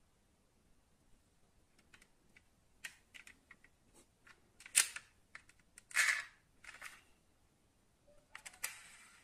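Small clicks and taps from a die-cast Kinsmart Mazda RX-8 model car being handled, its opening doors worked and its body turned over in the fingers. The clicks grow busier about three seconds in, with louder clacks around five and six seconds in and again near the end.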